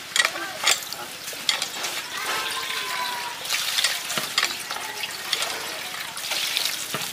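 Water splashing as it is poured from a metal pan into a plastic basin of raw meat pieces, filled from a hand-operated water pump, with scattered short knocks and clatters.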